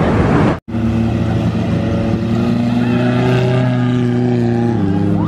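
Wind noise on the microphone for about half a second, a sudden cut, then a motor vehicle's engine running at a steady speed, its pitch dropping slightly near the end.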